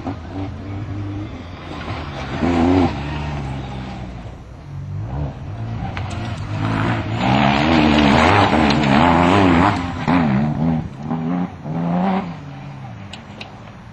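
Engine of a Suzuki Swift-based compsafari off-road racer, the KAP Outlaw, revving hard on and off the throttle. Its pitch rises and falls again and again, and it is loudest from about seven to ten seconds in.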